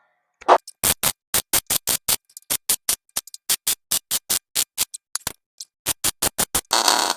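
MIG welder tack-welding sheet steel in a rapid string of short crackling bursts, about four a second, ending in a longer burst of about half a second near the end.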